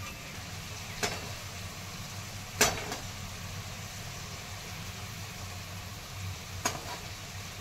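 Stuffed brinjals frying gently in oil in a non-stick kadhai: a faint sizzle over a steady low hum, with three sharp clicks of the spatula against the pan, the loudest about two and a half seconds in.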